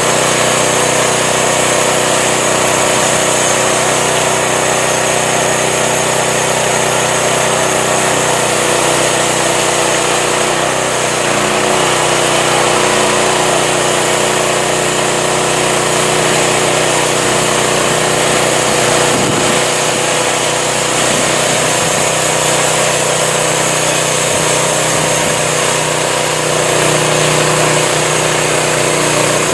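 Home-built band sawmill's engine running steadily at constant speed.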